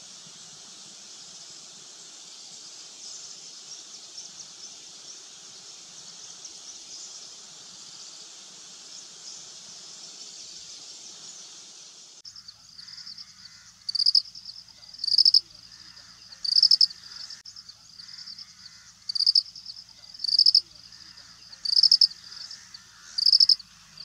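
Outdoor insect ambience: a steady high-pitched insect drone. About halfway through it changes to a loud, short, high chirp repeated every second and a half or so over a quieter background.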